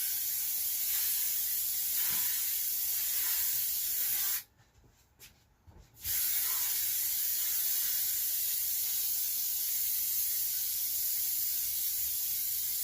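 Aerosol can of 'Get Stuck In' contact spray adhesive hissing steadily as it is sprayed onto a van floor for laying lino. The spray stops for about a second and a half about four and a half seconds in, with one short spurt in the gap, then carries on.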